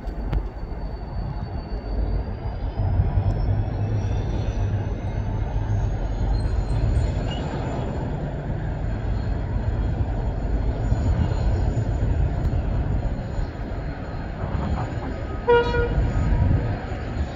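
Irish Rail 071 class diesel locomotive, with its 12-cylinder two-stroke EMD engine, pulling away under load with a laden spoil train: a steady low engine drone with a high whine rising in pitch over the first several seconds. About fifteen seconds in, a single short toot of the horn.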